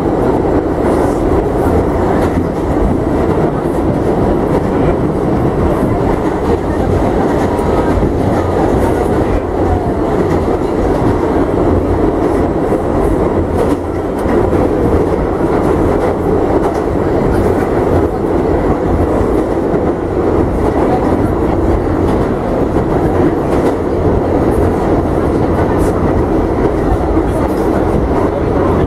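R68A subway car running at speed, heard from inside the car: a loud, steady rumble of wheels and running gear on the rails with faint scattered clicks.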